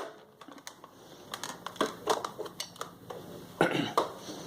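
Handling noise: scattered light clicks and knocks with soft rustling, and a louder burst about three and a half seconds in.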